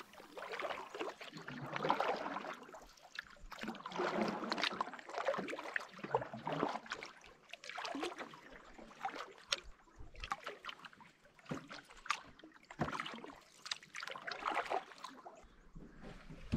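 Canoe paddle strokes in calm lake water: the blade swishing through and water dripping off it, a stroke about every two to three seconds, with small clicks between them.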